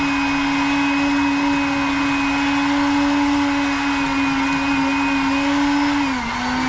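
Electric countertop blender running at full speed, blending fruit juice, with a loud steady hum at one pitch. Near the end the pitch drops as the motor begins to slow.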